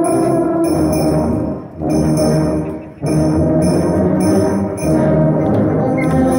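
A massed band of tubas and euphoniums playing a Christmas carol in sustained low brass chords, with brief breaks between phrases about two and three seconds in.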